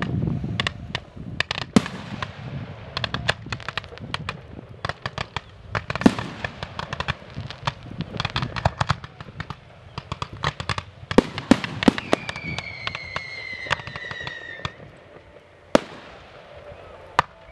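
Fireworks display: a dense, rapid run of cracks and pops from launched shells and crackling effects, thinning out in the later seconds, with a few single loud bangs near the end. A high whistle falls slowly in pitch about twelve seconds in.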